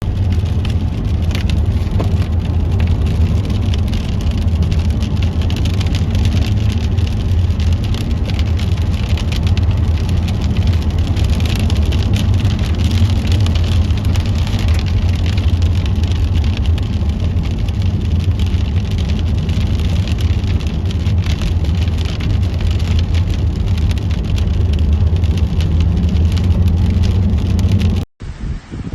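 Loud, steady storm noise: wind and rain with a deep rumble underneath. It cuts off suddenly near the end.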